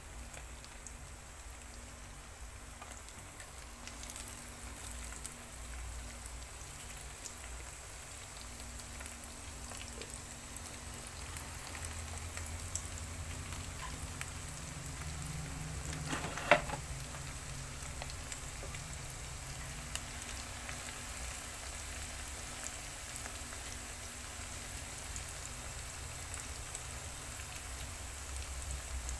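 Thin strips of tempeh frying in hot oil in a pan: a steady crackling sizzle that grows gradually louder as the oil bubbles up. A single sharp clink about halfway through.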